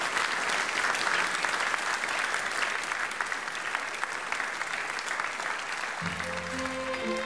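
Audience applauding, a dense steady clapping that eases off slightly; about six seconds in, music comes in under the applause.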